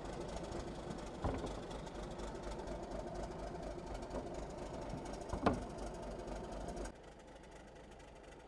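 Patrol boat's engine running steadily, with a couple of brief knocks. Near the end the sound drops abruptly to a much quieter background.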